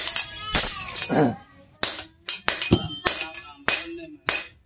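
Hand hammer striking a steel machete blade on a small post anvil: about a dozen sharp metallic blows, each ringing briefly, in an uneven rhythm of two to three a second.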